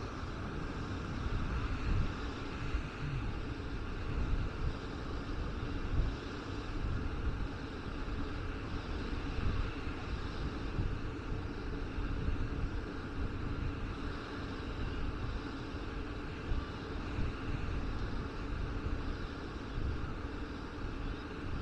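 Wind buffeting the microphone in uneven low rumbling gusts, over a steady outdoor hiss.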